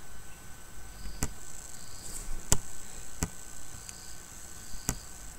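Computer mouse clicks: four sharp clicks, spread out, over a faint steady high whine and a soft high chirp that repeats about once a second.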